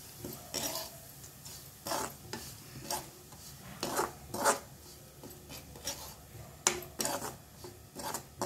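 Metal spatula scraping and tossing crisp-fried bitter gourd rings and ground spice powder around a kadai, in irregular strokes about once a second.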